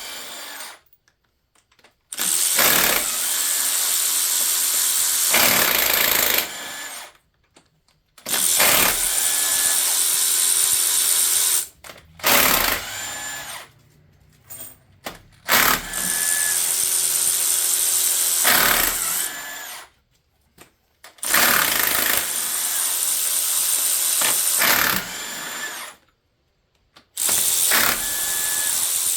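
Power tool, such as a drill or power ratchet, running in repeated bursts of several seconds with short pauses between them as it backs out engine bolts.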